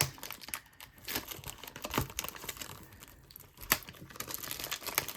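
Trading-card box packaging being handled and torn open: plastic wrapping crinkling and crackling with scattered sharp snaps, the loudest about two seconds in and near four seconds.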